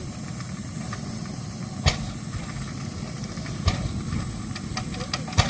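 Steady hissing rumble around a Lanz stationary engine that won't start, with three sharp metallic knocks about two seconds apart.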